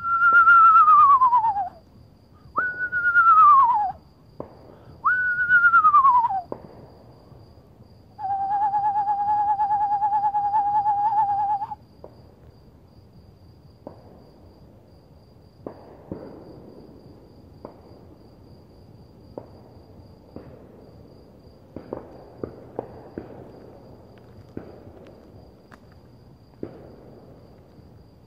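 Person whistling an imitation of an eastern screech-owl to call one in: three falling whinnies, then one long, even trembling trill. Faint scattered clicks and rustles follow.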